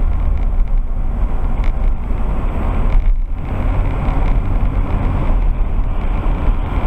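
Steady road and engine noise inside a moving car, picked up by a dash camera's built-in microphone, with a brief lull about three seconds in.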